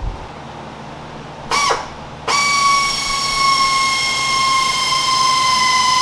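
Pneumatic right-angle air drill: a short blip of the trigger about 1.5 s in, then from about 2.3 s a steady high whine as it drills into the 5.7 Hemi's crankshaft nose, its pitch sagging slightly under the load.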